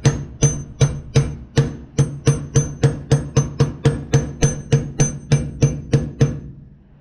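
Hammer tapping on a 21 mm socket and extension, about three light strikes a second with a metallic ring, stopping about six seconds in: the socket is driving a new rubber boot into a brake caliper bracket a little at a time.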